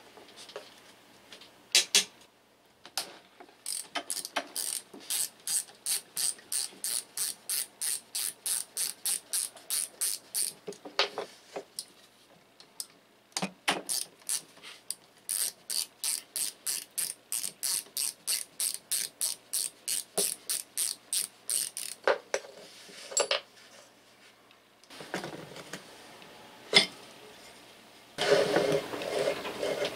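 Ratchet screwdriver with a hex bit unscrewing the screws of a Makita 1800 electric planer's aluminium housing, its ratchet clicking in long even runs of about two clicks a second, with single clicks between. A brief rough scraping noise near the end.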